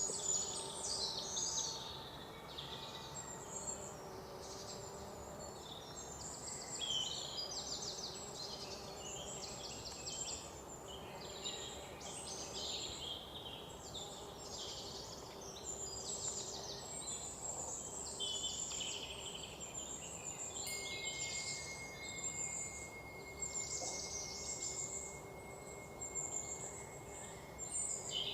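Many small birds chirping and twittering over a steady background of noise. A thin steady whine, like an insect, joins about three-quarters of the way through.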